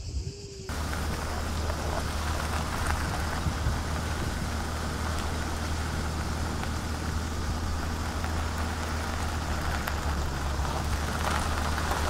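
Car on the move: a steady low engine hum under an even rush of road and wind noise, starting suddenly about a second in.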